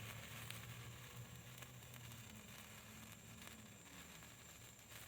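Faint crackle and fizz of a small gold electric sparkler burning, barely above near silence, with a low steady hum beneath that fades out near the end.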